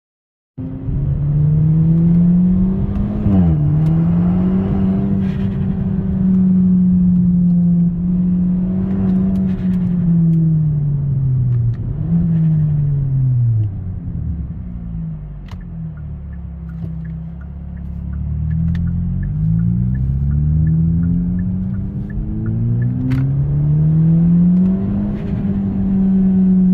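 A Hyundai car's steady droning note that rises and falls in pitch, dipping suddenly and recovering a few times, then sinking low before climbing again. A light, even ticking about twice a second runs through the middle stretch.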